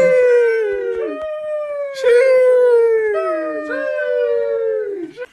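Drawn-out howling in a series of long notes, each about a second long, sliding down in pitch, with new notes starting over the tail of the last.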